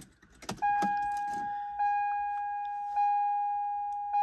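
Keys clicking into a 1992 Lexus ES300's ignition, then the car's warning chime sounding about half a second in. It is one steady high tone that is struck again about every 1.2 seconds.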